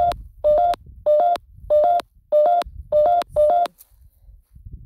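Electronic beeping: a short two-note rising tone repeated about every 0.6 seconds, about seven times, stopping a little before four seconds in.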